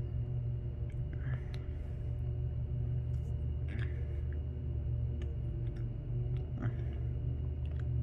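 A man chewing a bite of soft chocolate snack cake with closed lips: a few faint, short mouth sounds over a steady low hum that is the loudest thing present.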